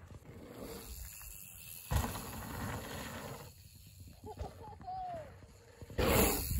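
Wind rumbling and buffeting on the microphone, with a sudden loud gust about two seconds in and a stronger one near the end. A few short rising-and-falling calls sound about four to five seconds in.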